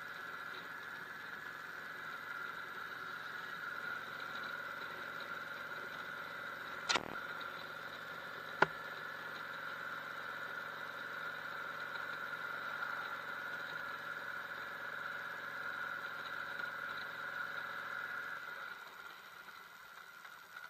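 Yamaha V Star 650's V-twin engine running under way, heard from a helmet-mounted camera with steady wind noise. Two sharp clicks come about seven seconds in and again a second and a half later, and the sound gets quieter near the end.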